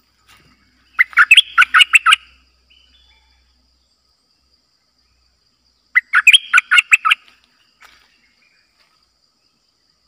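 Caged decoy bulbul singing two short bursts of about eight quick notes each, the bursts about five seconds apart.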